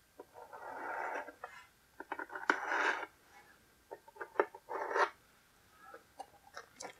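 Hands handling cardboard packaging while a hobby knife cuts packing tape: a few short scraping rustles of cardboard and tape, with scattered sharp clicks and taps between them.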